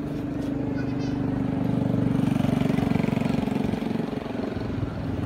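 A small engine running steadily with a fast, even pulse, growing louder around the middle and easing off near the end.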